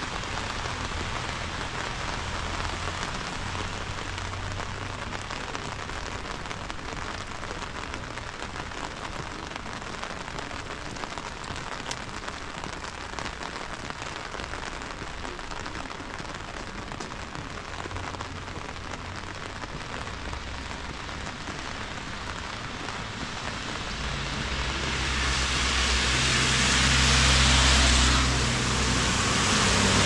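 Steady rain falling, an even hiss. In the last few seconds a motor vehicle comes up on the wet road, its tyre hiss and low engine hum growing loud over the rain.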